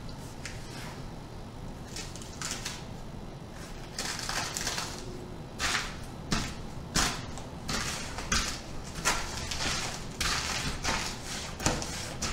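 Goldfish crackers crunching and crumbling under a flip-flop sole as they are stepped on and ground into crumbs. A few scattered crackles come first, then from about four seconds in the crunching grows denser, with sharp snaps between.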